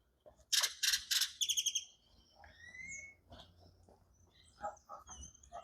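A bird calling loudly: three or four harsh, scratchy notes about half a second in, running into a quick rattle, then a rising whistle. Fainter short chirps and calls follow.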